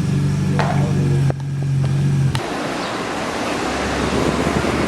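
A vehicle engine running with a steady low hum and a few sharp clicks, giving way about halfway through to a steady rushing noise like wind or road noise over a low rumble.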